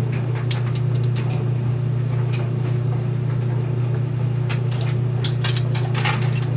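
Steady low hum throughout, with scattered light clicks and taps, thickest in the second half, as a bottle of apple cider vinegar is handled and a capful is poured into a metal water bowl.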